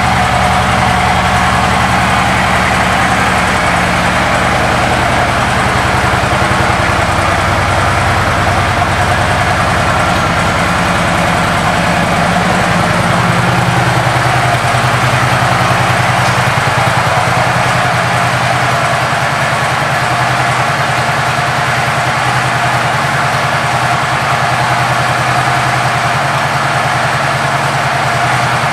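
2009 Harley-Davidson Ultra Classic's V-twin engine idling steadily through its aftermarket exhaust.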